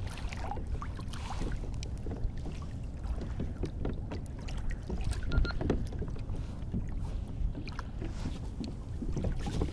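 Water lapping against a fishing kayak's hull, with a steady low wind rumble on the microphone and scattered small knocks and splashes.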